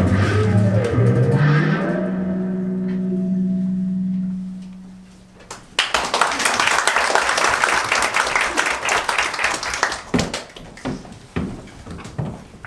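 A guitar chord in the soundtrack rings out and fades, ending a song. Almost six seconds in, a dense noisy clatter starts, lasts about four seconds and breaks into a few scattered knocks.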